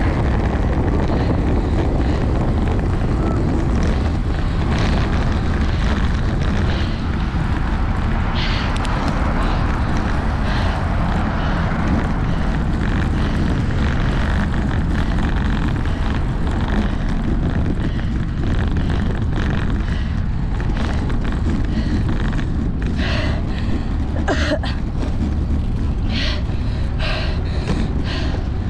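Steady, loud rumble of wind buffeting a bike-mounted camera's microphone as a road bike is ridden at race speed. A few short, sharper sounds come through near the end.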